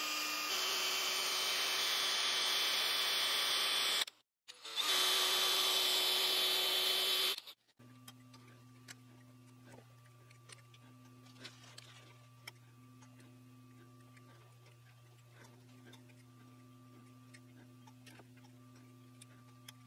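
A power drill runs steadily for about four seconds, stops briefly, then runs for about three more seconds and stops. After that, faint clicks and ticks of a tap being turned by hand in a T-handle tap wrench, over a steady low hum.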